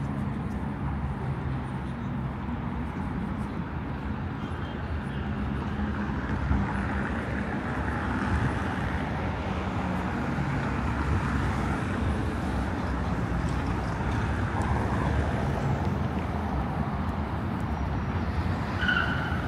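City street ambience: a steady rumble of vehicle engines and traffic, with a brief high tone near the end.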